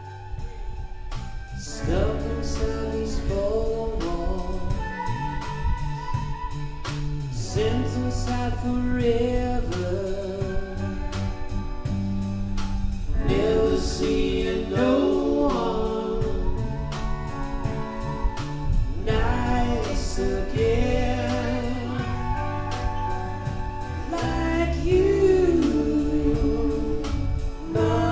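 Live rock band playing: electric guitars and a drum kit with a voice singing over them. It starts softer, then the full band comes in about two seconds in.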